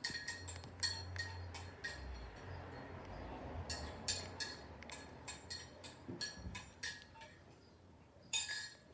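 Nokia 2660 ringtone playing through the phone's small speaker: a run of short, high, bell-like notes in an uneven melody, with a louder, longer note cluster near the end.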